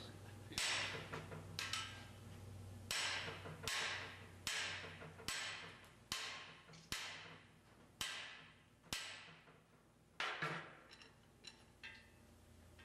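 Hammer blows on a cam bearing installer tool, driving a cam bearing into the engine block's cam bore: about a dozen sharp, ringing strikes at an even pace of roughly one every 0.8 seconds, then a few lighter taps near the end.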